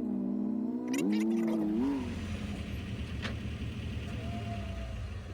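Off-road vehicle engine running at a steady pitch, rising briefly about a second in, then dropping to a low rumble, with one sharp click a little past three seconds.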